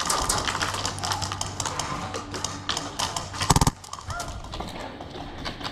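Airsoft guns firing: a scatter of rapid clicking shots, with a loud, quick burst about three and a half seconds in.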